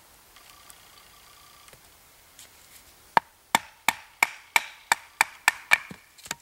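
Wooden baton striking the back of a knife blade to drive it through a piece of wood on a stump. It gives about ten sharp knocks, roughly three a second, starting about three seconds in.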